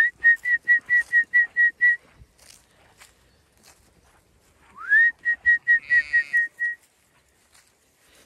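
A shepherd's whistled call to the ewes, given twice: each call is a quick rising whistle followed by a string of about eight short, even pips at the same high pitch. The second call begins about five seconds in.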